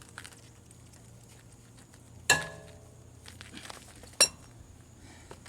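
Metal clinks as lug nuts are loosened and handled by hand: two sharp clinks about two seconds apart, the first ringing briefly, with faint small taps between.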